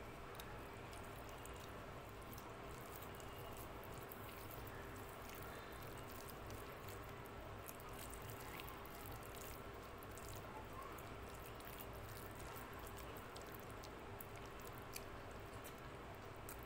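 Fingers mixing rice with dal on a plate: faint wet squishing with many small sticky clicks.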